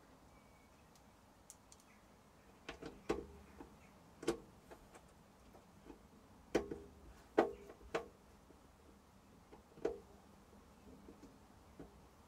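Irregular light clicks and knocks of air fryer parts being handled and fitted during reassembly, about eight over the stretch, the loudest near the middle.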